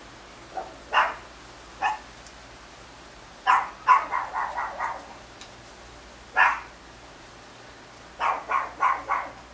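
A dog barking in bouts: single barks about a second and two seconds in, then quick runs of several barks in a row around the middle and again near the end.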